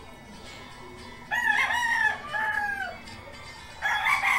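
Rooster crowing: one crow with a short break in it, starting about a second in, and another crow beginning near the end.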